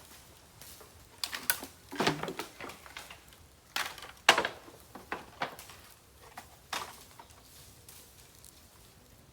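Irregular sharp cracks and snaps of dry bamboo, about a dozen in a few seconds, loudest about four seconds in.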